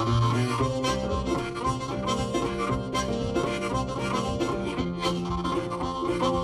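Background music with harmonica playing held notes over plucked strings and a steady beat.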